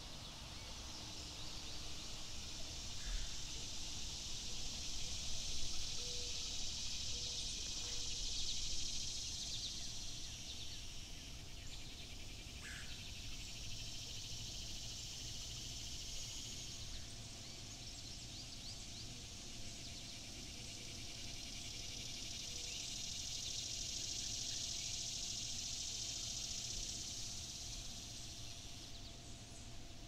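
Outdoor ambience by a mountain stream: an even high hiss that swells and fades twice, each time for about ten seconds, with a few faint chirps.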